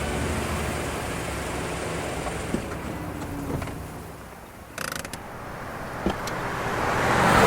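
A low mechanical rumble with small creaks and clicks fades away, then a car approaches, growing steadily louder near the end.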